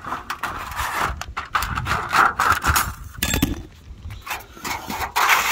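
Thin aluminum flashing being trimmed with tin snips and handled against asphalt shingles: a run of scratchy cuts, metallic rattles and sharp clicks.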